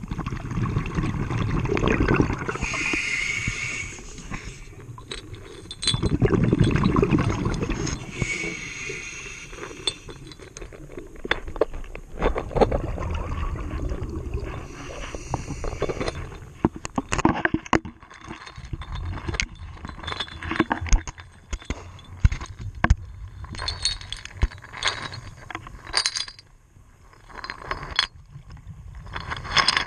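Heard underwater: a scuba diver's exhaled bubbles rushing from the regulator, twice in the first several seconds, then a run of sharp clicks and clinks of hard objects knocking.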